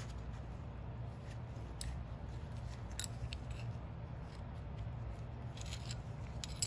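Steel parts of an Atlas lathe compound rest clicking and scraping against each other as they are handled and fitted together by hand. A few sharp metallic clicks, the loudest about two seconds in and a cluster near the end, over a steady low hum.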